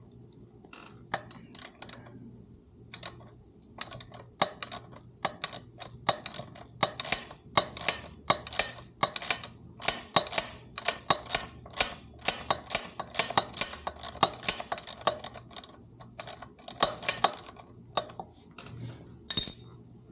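Wrenches working the nut on a motorcycle's shift linkage rod: a long run of sharp metal clicks and clinks, about two to three a second through the middle, with one loud clink near the end.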